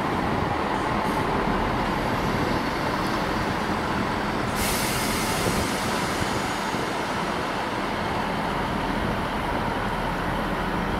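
ScotRail diesel multiple unit moving slowly along a station platform: a steady engine and wheel drone with a faint constant whine. About halfway through a sudden hiss of released air starts and slowly fades.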